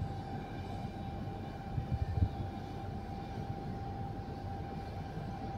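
Steady low rumble with a faint steady hum, and a few soft low knocks about two seconds in.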